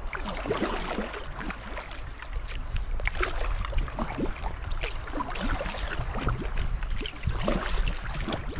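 Water splashing, gurgling and trickling around a sea kayak's hull as it moves through calm sea: many small irregular splashes over a low steady rumble.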